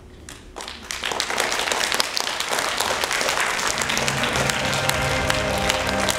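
Audience applause: a few scattered claps that swell within about a second into dense, steady clapping. Music with long held notes comes in under the clapping about four seconds in.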